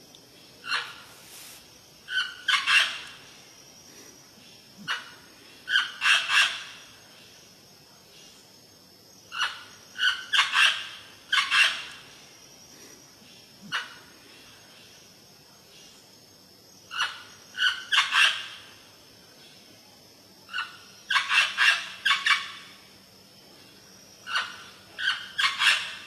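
Parrot squawking: short, harsh calls in clusters of two to four, repeated every few seconds.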